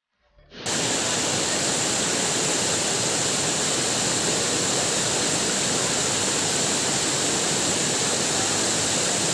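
Waterfall: water pouring and splashing in a steady, dense rush that rises quickly out of silence about half a second in.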